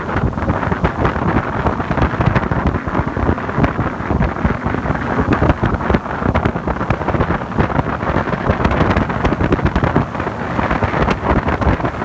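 Wind buffeting the microphone aboard a moving Yamaha AR210 jet boat: a loud, steady, gusty rush with no breaks.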